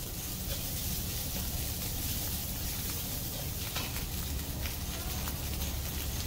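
Rice stir-frying in a very hot oiled pan with egg: a steady sizzle, with a few short clicks of stirring here and there.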